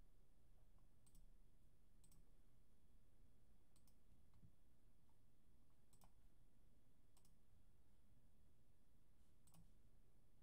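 Faint computer mouse clicks: about six single clicks a second or two apart, over a quiet, steady low room hum.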